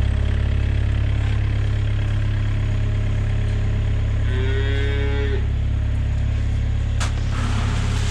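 A cow moos once, about a second long, some four seconds in, over a steady low engine drone. A sharp click near the end.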